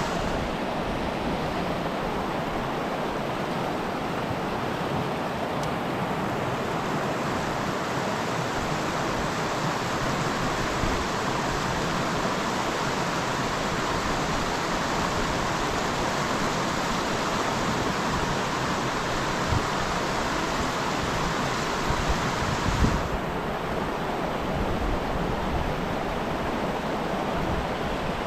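River rapids rushing: a steady, even noise of fast-flowing water. About 23 seconds in, the higher hiss of the water becomes duller.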